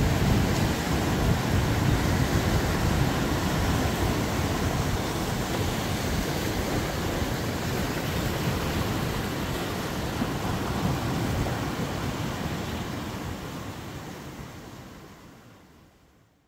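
Ocean surf washing on a beach, with wind rumbling on the microphone: a steady rushing noise that fades out over the last two seconds or so.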